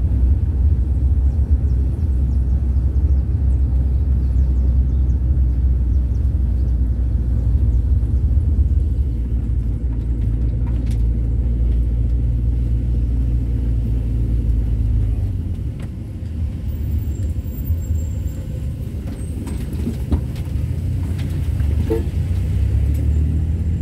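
Volkswagen Kombi van on the move: a steady low engine and road rumble that eases off about two-thirds of the way in and builds again near the end.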